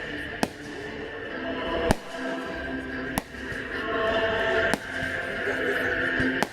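Fireworks going off: five sharp bangs about a second and a half apart, the loudest about two seconds in. Steady background music plays underneath.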